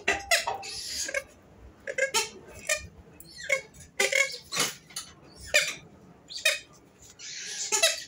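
Grey-headed swamphen (kalim) giving a string of short, sharp, thin calls, about one or two a second, with a longer hoarse burst near the end. Per the keeper, this thin call marks the bird as a female.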